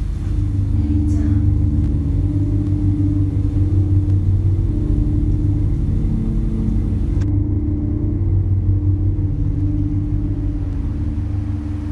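A loud, steady low drone with a pulsing throb, typical of a film score's electronic drone. It carries on unbroken through a scene change about seven seconds in.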